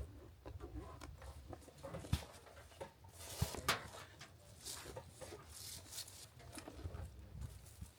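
Rustling and handling noise with a few sharp knocks and clicks, the loudest about two seconds in and twice more around three and a half seconds in, as a truck-mounted OVS 270-degree awning is unpacked and swung out.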